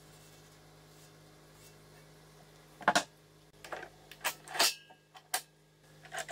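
Sharp clicks and knocks as a band saw's vise is handled, its threaded steel screw and knob rattling against the vise body, starting about three seconds in, over a faint steady hum.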